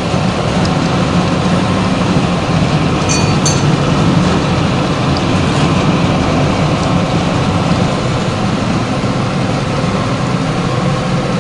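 A 400-model flat-die wood pellet mill running steadily under load, its electric drive and die giving a loud, even drone as it presses sawdust into pellets.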